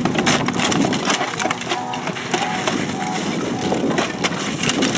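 Roofing shovels tearing old asphalt shingles and cedar shakes off a roof deck: a dense, irregular run of scraping, cracking and clattering as the layers are pried up and broken.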